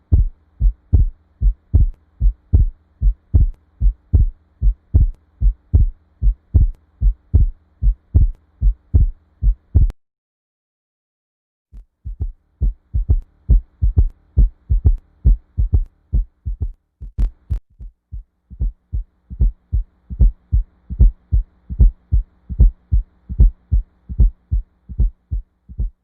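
Heart sounds recorded through a stethoscope: a regular lub-dub rhythm of short, low thumps, a little over two a second, over a faint steady hum. The beating breaks off just before ten seconds in and resumes about two seconds later, with a sharp click a few seconds after that.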